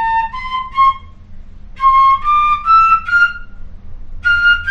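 Pífano, a Brazilian transverse fife in C, playing a slow scale exercise: short runs of four separately tongued notes, each run rising step by step. A brief pause falls between runs, and each run starts higher than the one before.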